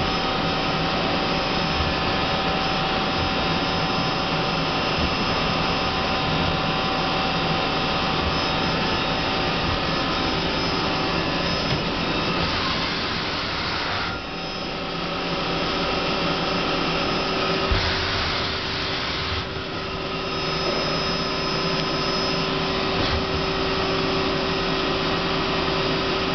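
Hardinge Quest 10/65SP CNC turning center running a program: a steady machine whir with several steady tones. Twice around the middle, a short rush of hiss is followed by a brief dip in level.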